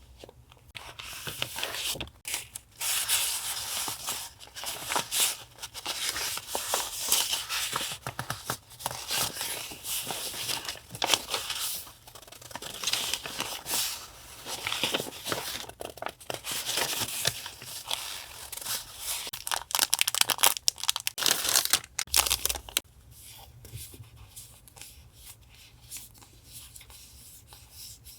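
Paper and plastic packaging being torn and crinkled by hand in loud, noisy rustles. About 23 seconds in it stops, leaving only faint light taps.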